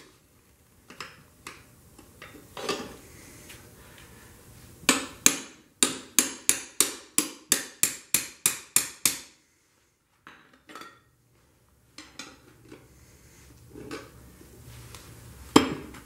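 Metal tire-changing tools knocking against a motorcycle wheel rim as a tight new tire is worked onto it. A few scattered knocks, then a quick even run of about fourteen sharp metallic strikes at roughly three a second, and one loud knock near the end.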